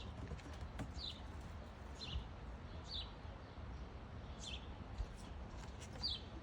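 A bird chirping repeatedly: short, high, downward-sliding chirps roughly once a second, over a low steady rumble.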